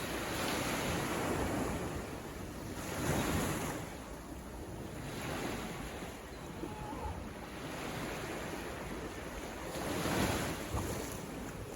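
Ocean waves breaking and washing on the shore in a continuous rushing surf, swelling into louder surges about three seconds in and again near ten seconds.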